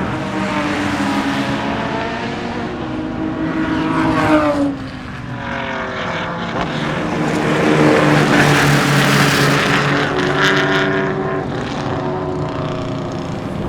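Jaguar E-Type's 4.2-litre inline-six engine running hard at race speed. Its pitch rises, drops sharply about four and a half seconds in, then climbs again and eases off near ten seconds.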